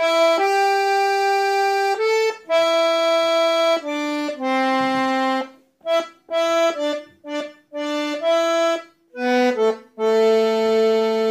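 Tula garmon, a Russian button accordion, playing a melody on its right-hand buttons: a phrase of separate notes, some short and some held over a second, with brief breaks between them.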